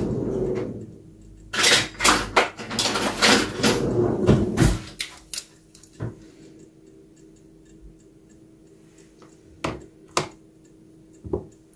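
Metal kitchen tongs clicking and clattering against a stainless steel pot and a plastic container as boiled chicken breast fillets are lifted out and laid in. A busy stretch of clatter in the first few seconds, then a few single clicks near the end.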